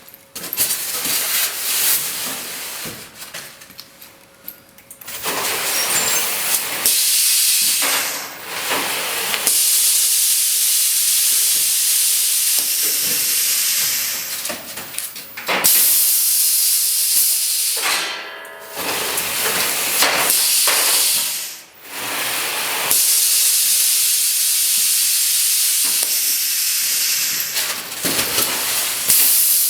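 Automatic EPS foam packaging machine running, with long stretches of loud hissing that drop away briefly and start again several times.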